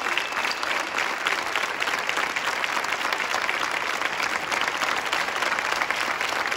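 Crowd applauding: many hands clapping in a steady, dense patter.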